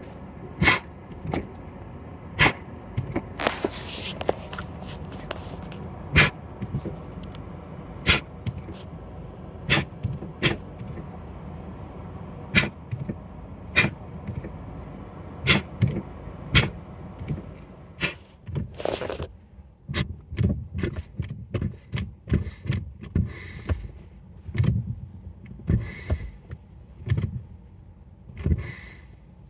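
Brake pedal of a Peugeot 308 1.6 THP pressed repeatedly, squishing through each stroke from first hydraulic resistance to full travel, with a sharp click at each press, over the engine running. About two-thirds of the way in the steady engine sound stops and the pedal is pumped in quicker, shorter strokes. The squish is a new noise on the left side, where the master cylinder sits; braking still feels normal.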